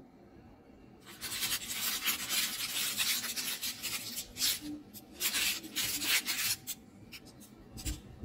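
Baking parchment crinkling and rustling as fingers handle it: a run of scratchy rubbing noises that starts about a second in and thins out to a few scattered crackles after six and a half seconds.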